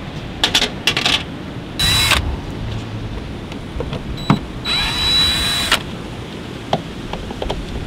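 Yellow DeWalt cordless drill/driver running in two short bursts, briefly about 2 s in and for about a second around 5 s in, backing out the screws that hold a chartplotter in a boat's helm panel. A few sharp clicks come just before the first burst.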